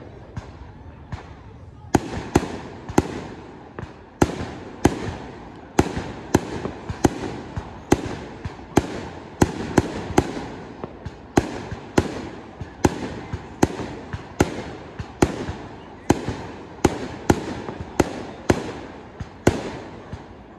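Aerial firework shells bursting in a rapid barrage, about two bangs a second, each trailing off in echo. The barrage starts about two seconds in, after a short quieter spell.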